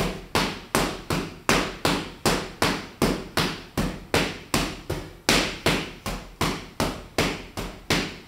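Boxing gloves smacking into focus mitts in a fast, even stream of alternating punches, about two to three hits a second.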